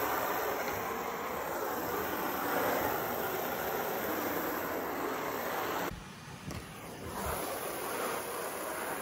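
Water spraying and splashing steadily into a plastic kiddie pool, briefly dropping away about six seconds in.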